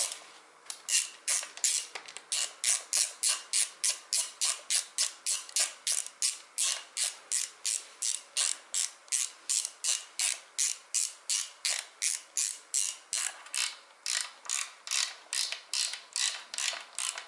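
Socket ratchet wrench clicking in steady back-and-forth swings, about three strokes a second, as a bolt is run in by hand. There is one short break near the start.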